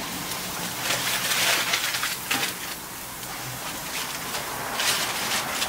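Raw burger patties sizzling on a hot charcoal grill grate, with aluminium foil crinkling in two spells as the next patty is unwrapped.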